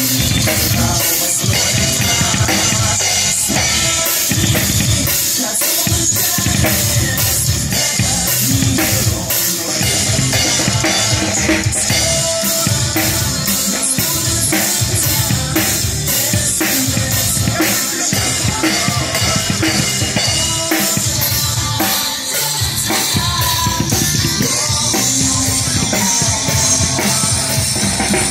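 Acoustic drum kit played live to music, a steady beat of bass drum, snare and cymbals.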